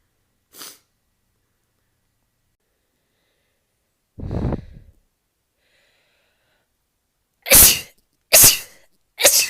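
A woman sneezing in a rapid series: three loud, sharp sneezes in quick succession less than a second apart near the end, after a single short loud burst about four seconds in.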